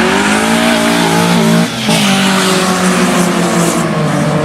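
Two Honda four-cylinder engines, an H22 and a B-series in an EG Civic, revving hard as the cars launch side by side from a standing start. The pitch climbs steadily, drops with an upshift a little under two seconds in, then climbs again as they pull away.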